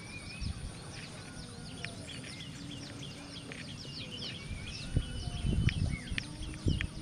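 Many small birds chirping over and over in quick, short notes, against a low outdoor rumble. A few dull low thumps come between about five and seven seconds in.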